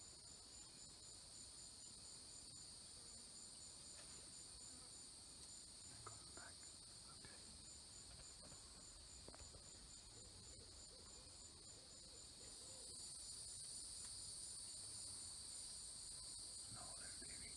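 Insect chorus of crickets: several steady high-pitched trills, one of them pulsing evenly, growing louder about two-thirds of the way through.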